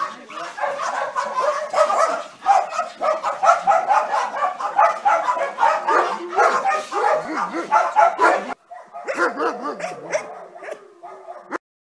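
Several dogs barking at once in a dense, overlapping chorus of rapid barks. The sound breaks off abruptly about two-thirds of the way through, picks up again, and stops suddenly near the end.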